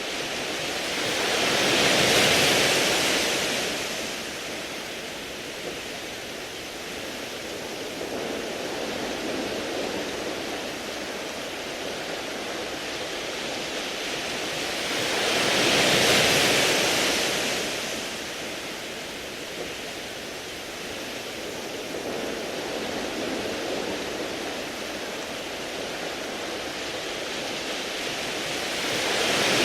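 Sea waves washing in over a beach of smooth round pebbles: a steady rushing hiss that swells into two big surges, one about two seconds in and one about halfway, each lasting a few seconds, with another building at the end.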